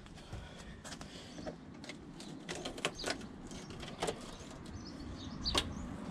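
Scattered clicks and knocks of the Saab 9-5's plastic scuttle panel trim being handled and pried loose, with the sharpest knock about five and a half seconds in.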